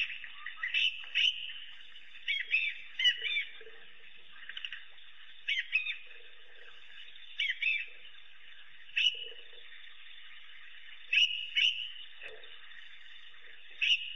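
African wild dogs giving short, high-pitched, bird-like twittering calls, often two or three in quick succession, every second or two. This is the excited twittering of a pack circling a crocodile.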